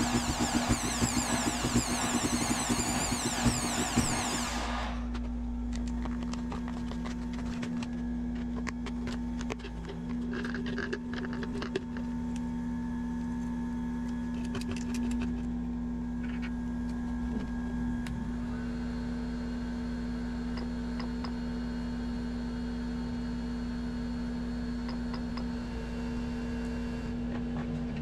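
A heat gun blowing and an electric drill spinning a plastic bottle, a loud hiss that cuts off about five seconds in. After that, a steady machine hum with scattered small clicks of plastic parts being handled. From about two-thirds of the way in, a few more steady tones join the hum.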